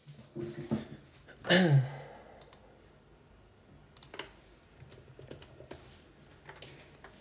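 Handling noise as a printed paper sheet is slid and pressed flat on a desk mat by hand: scattered light clicks and taps. About a second and a half in, a short low voice sound falls in pitch and is the loudest thing heard.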